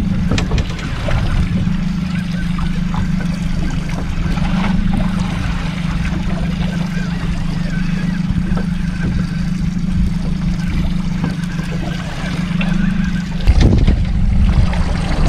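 Small boat's outboard motor idling with a steady low hum. About thirteen seconds in, wind gusts buffet the microphone with a louder low rumble.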